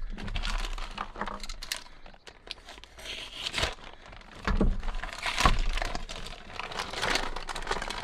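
Clear plastic packaging bag crinkling and rustling in irregular bursts as it is handled and slit open with a utility knife.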